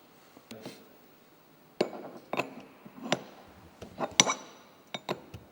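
Scattered light metallic clinks and knocks from a bearing press tool being worked by hand, about a dozen separate contacts of metal on metal as the press screw is turned and the tool is handled while pressing a crankset bearing into its cup.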